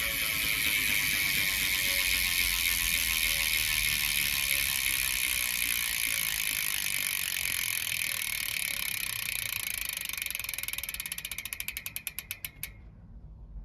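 Cinema VX2 cassette hub's freewheel ratchet clicking as the spinning rear BMX wheel coasts: a fast, high-pitched buzz that gradually slows into separate clicks and stops near the end.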